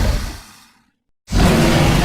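The tail of one loud kaiju monster roar sound effect fades away, then after a brief silence another deep, rumbling kaiju sound effect starts abruptly about a second and a half in.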